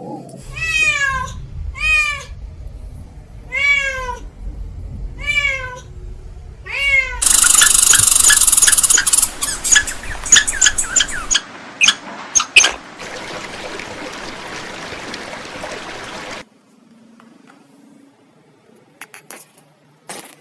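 A cat meowing six times in short rising-and-falling calls about a second apart. Then a loud rushing noise with sharp clicks runs for about four seconds, followed by a softer steady hiss that cuts off about 16 seconds in.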